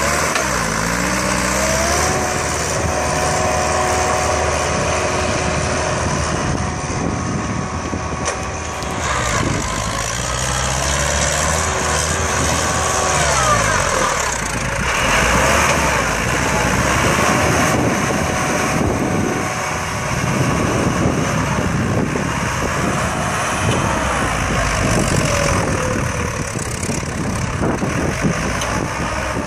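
Indian-made farm tractor's diesel engine working under load as it drives a rotary tiller through soil. The engine pitch holds steady for stretches and rises and falls several times.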